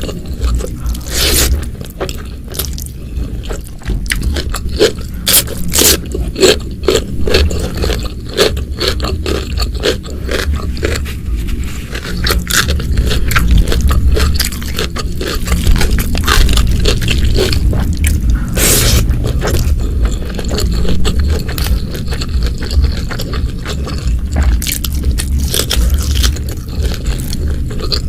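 Close-miked eating: irregular crunches and crackles of food being bitten and chewed, over a low rumble.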